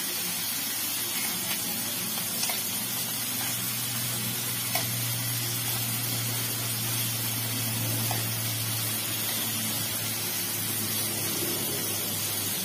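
Chicken pieces sizzling steadily in hot oil in a frying pan, with a few light clicks of the spoon and spatula as the pieces are turned over. A low steady hum runs underneath.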